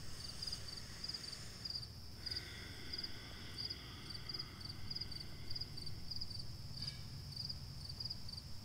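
Crickets chirping steadily, short high chirps repeating about twice a second, over a faint low rumble.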